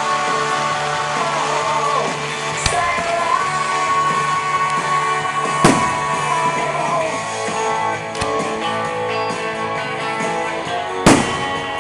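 A song with singing and guitar plays throughout. Four sharp firework bangs cut through it, the loudest about halfway and near the end.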